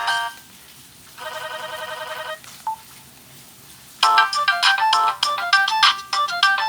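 Ringtones playing through the loudspeaker of a Samsung SGH-A157 flip phone. One tune cuts off right at the start. About a second in comes a short run of rapid repeated tones, and about four seconds in a new melody begins.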